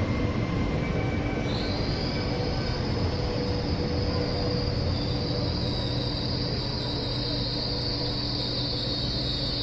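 Trenitalia ETR 104 Pop electric train pulling in and braking to a stop, running with a steady rumble. A high, sustained squeal comes in about a second and a half in and holds as it slows.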